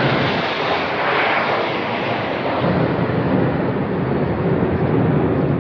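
Low-flying RAF military aircraft passing overhead, hidden above low cloud: loud, steady engine rumble.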